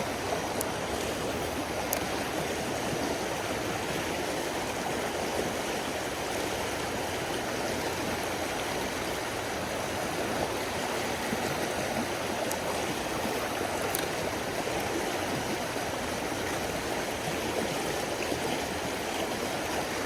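Creek water running steadily over riffles, an even rushing and babbling, with a few faint clicks now and then.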